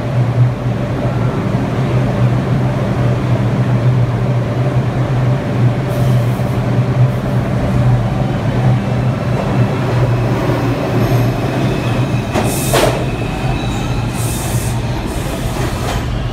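Onboard an R142 subway car running through the tunnel: a steady low hum with a constant rumble of wheels on rail. About three-quarters of the way through there is a short, sharp, high-pitched sound.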